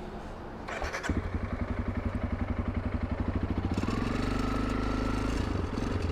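Honda CRF300 Rally's single-cylinder engine starting about a second in, then running with an even beat and revving up a little before the middle.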